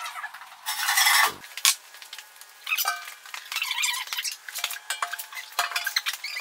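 Metal clanks, clinks and scrapes from a Laguna 14X bandsaw being set down and shifted on its sheet-metal stand. The knocks ring briefly, and a louder rushing scrape comes about a second in.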